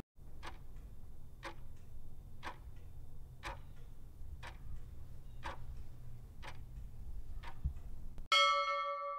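Clock ticking steadily, one tick a second, eight ticks over a low hum. Near the end a single bell-like chime strikes and rings on, fading away.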